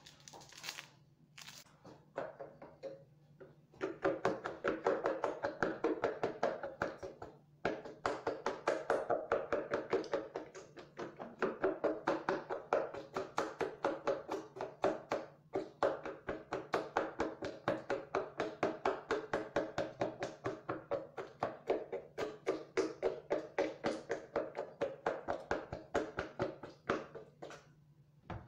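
A fork beating a wet mixture in a clear mixing bowl, rapid rhythmic strokes scraping and knocking against the bowl at about three to four a second. It starts about four seconds in after a few light knocks, with a faint low hum underneath.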